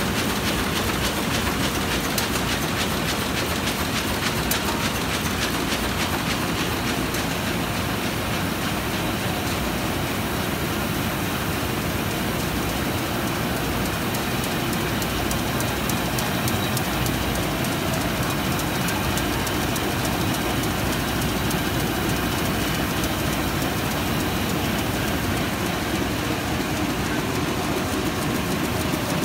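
Komori Lithrone LS640 six-colour sheet-fed offset press with coater running, a steady, dense mechanical clatter with rapid, even ticking.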